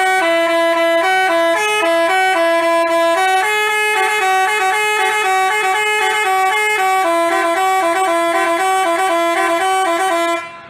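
Telolet basuri musical horn playing a tune of quick, stepping notes, then cutting off near the end.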